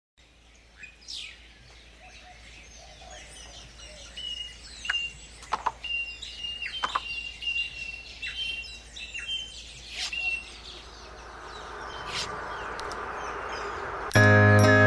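Birds chirping and calling in short scattered phrases over a faint outdoor background, with a hiss that swells over the last few seconds. Near the end, music with bright chimes starts suddenly and loudly.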